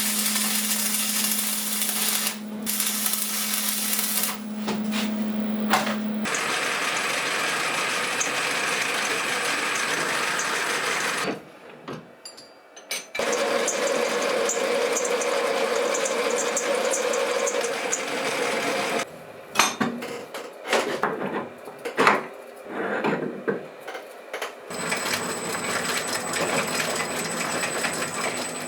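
An electric motor taken from a washing machine, running a tool with a steady hum. It stops for about a second and a half some twelve seconds in and starts again. A stretch of irregular knocks and clatter follows before it runs steadily again.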